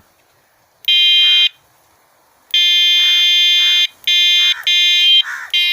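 Battery-powered bicycle air horn sounding in five loud, high-pitched, steady blasts: a short one, then a long one lasting over a second, then three quick ones in a row.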